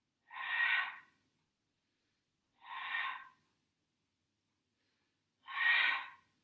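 A person exhaling hard through the mouth three times, each breath lasting about a second and coming roughly every two and a half seconds: Pilates breathing with the effort of the exercise.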